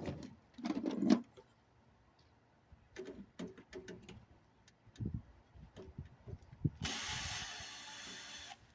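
Knocks and clatter of parts and tools being handled, then a power drill running steadily for under two seconds near the end before stopping.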